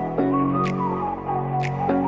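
Background music: sustained chords under a gliding melody, with a sharp percussion hit about once a second, here twice. The chord changes just after the start and again near the end.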